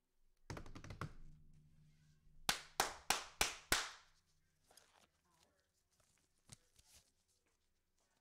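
Knocks and taps on a hard surface. About half a second in comes a cluster of thuds with a brief low hum ringing after them. Then five sharp taps follow in quick succession, about three a second, and a few fainter taps after that.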